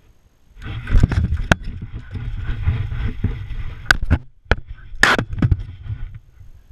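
Close-up rubbing and scraping noise from a GoPro strapped to a terrier as the dog moves over gravel, with several sharp clicks and knocks. It starts about half a second in and dies away about a second before the end.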